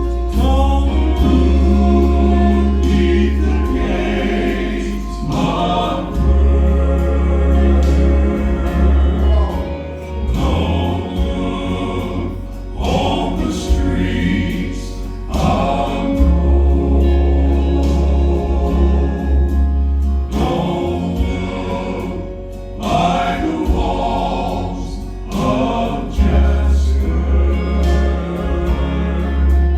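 Southern gospel quartet singing in close harmony over a steady bass accompaniment.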